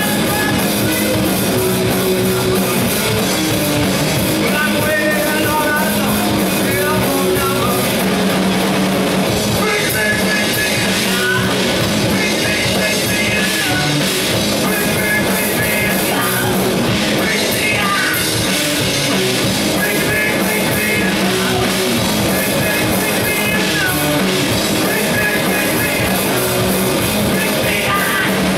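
A rock band playing loudly live: distorted electric guitars over a drum kit, steady and unbroken.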